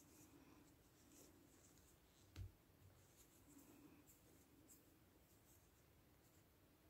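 Very faint rustling and soft scratchy clicks of a crochet hook working macrame cord through single crochet stitches, with one dull thump about two and a half seconds in.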